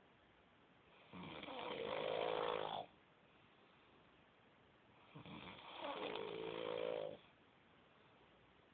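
A man snoring in his sleep: two long snores about four seconds apart, each lasting nearly two seconds, with quiet breathing between them.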